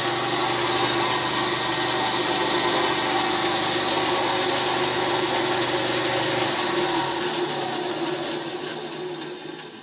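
My Project wood band saw running free, not cutting: a steady motor hum with the blade running. About seven seconds in it is switched off and winds down, fading away.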